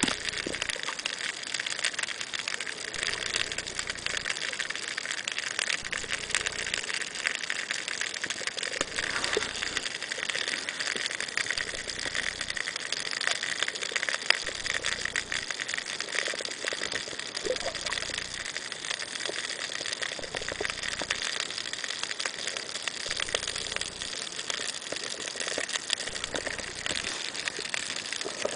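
Underwater ambience: a steady, dense crackling hiss full of fine clicks, with a soft low rumble of water movement that comes and goes every second or two.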